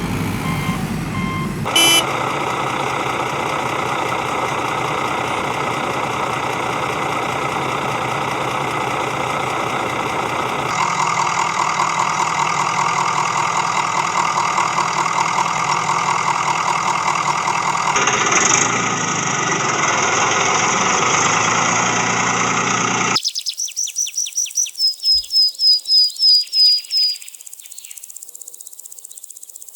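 Heavy construction-machine engine running steadily, changing in sound twice, with a fast rhythmic clatter for a stretch. Near the end it stops abruptly and a quick series of high chirps follows.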